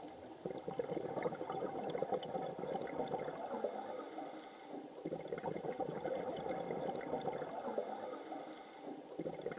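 Underwater bubbling and gurgling, typical of a scuba diver's exhaled air through a regulator, in two long spells of about four seconds each with a brief lull between them.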